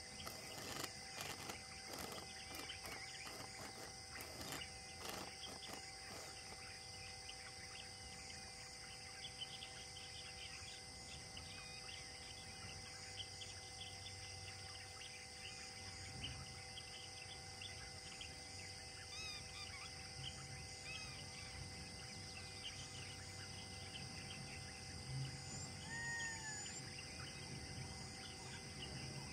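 Faint outdoor insect chorus with steady high-pitched droning and occasional bird calls, including a short clear call near the end. A few faint clicks come in the first several seconds.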